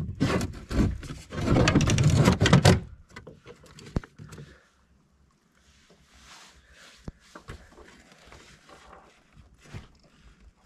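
Handling noise of a bass being held and lowered into a plastic fishing kayak: a few seconds of loud rustling and knocking, then faint shuffling with occasional sharp clicks against the hull.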